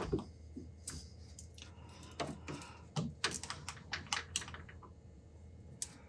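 Light metallic clicks and taps of tools and small metal parts being handled at a metal lathe's chuck and tool post, in an irregular run that is busiest through the middle.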